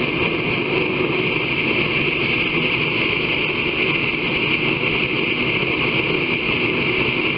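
A forge running, giving a steady, even rushing noise with no breaks or hammer blows.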